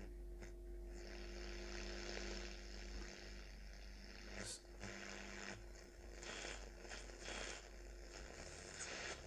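Telefunken Opus 8 tube radio's loudspeaker giving faint hiss and crackle over a steady mains hum, the hiss coming in about a second in: the freshly repaired set is on but only trying to pick up a station.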